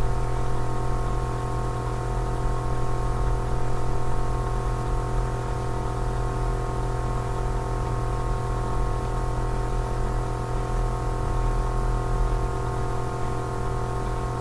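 Steady electrical hum and buzz with a stack of even overtones under a light hiss, unchanging throughout.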